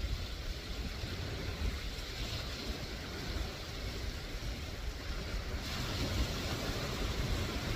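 Sea surf washing over a rocky shore, with wind rumbling on the microphone. The wash of the breaking waves gets louder about six seconds in.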